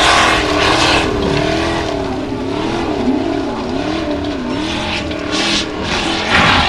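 Formula Offroad buggy's engine revving hard and unevenly on a steep gravel hill climb, its pitch swinging up and down as the paddle tyres spin and bite. Spraying gravel hisses over it, surging twice near the end.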